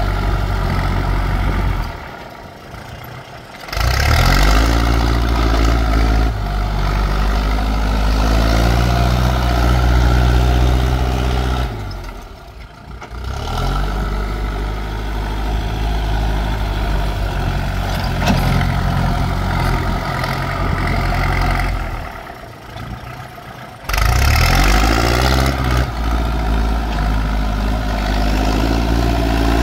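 Kubota L4708 tractor's 47-horsepower diesel engine running loud under load while it pulls a disc plough. Three times the engine sound falls away for a second or two, then comes back with its pitch climbing.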